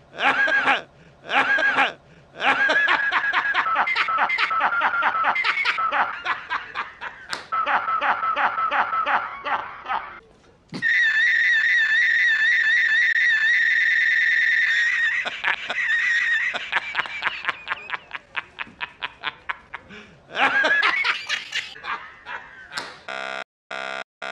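A man laughing hard, cut up by editing: first chopped into quick repeated bursts, then frozen into a steady buzzing tone for about four seconds, then stuttered in fast repeats. A last loud laugh burst near the end breaks into a blocky repeating digital glitch.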